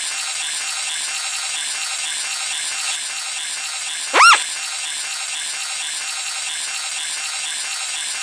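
Star Wars mouse droid sound effect: a steady, rattling motor whirr, with one loud short chirp about four seconds in that swoops up and back down in pitch.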